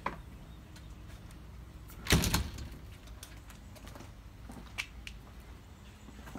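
A single loud thump about two seconds in, with a few light clicks and knocks before and after it.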